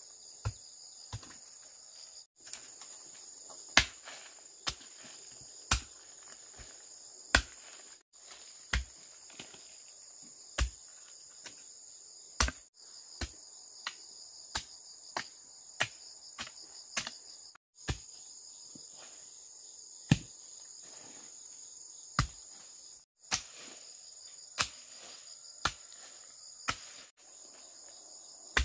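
Sharp wooden knocks at an uneven pace, roughly one strike a second, from hand-tool work on a chicken coop, over a steady high insect chorus. The sound drops out briefly several times.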